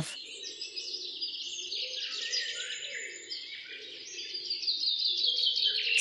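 A chorus of many small birds chirping and twittering without a break, over a lower sound that swells and fades.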